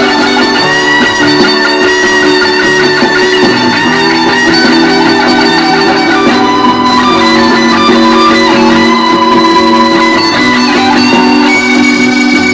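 Fender American Standard Stratocaster HSS electric guitar being played, with long held notes ringing over one another at a steady, loud level.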